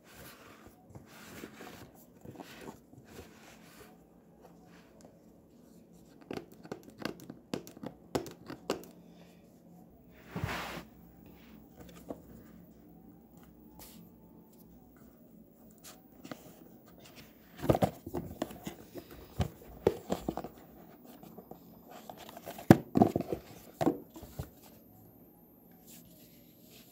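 A cardboard speaker box and its wrapping being opened by hand: scattered rustles and scrapes, a short tearing sound about ten seconds in, and louder clusters of tearing and crinkling in the second half.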